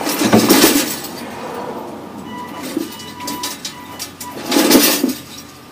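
Remote-controlled tracked lawn mower driving down off its wooden shipping pallet: a thin steady motor whine from its drive, with two loud bursts of noise, one at the start and one near the end.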